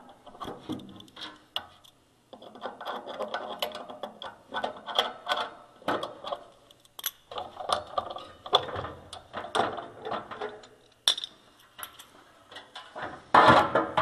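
Furnace squirrel-cage blower wheel being worked out of its sheet-metal blower housing: irregular metallic clicks, clanks and scraping, with a louder burst of rattling about a second before the end.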